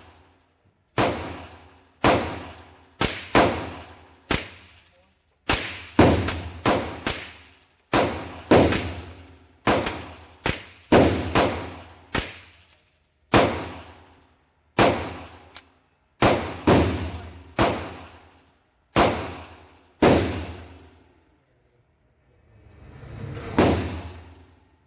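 AR-15 fitted with a CMMG .22 LR conversion kit firing about two dozen single shots at an uneven pace, roughly one a second, each a sharp crack with a short ringing tail. Near the end there is a brief swelling rush of noise.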